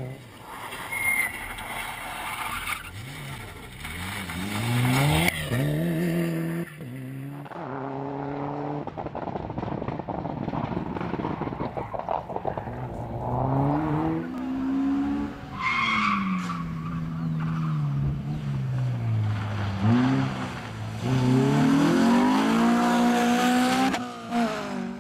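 Several competition cars driven hard one after another, engines revving up and dropping back through gear changes and lifts, with a short tyre squeal about two-thirds of the way through.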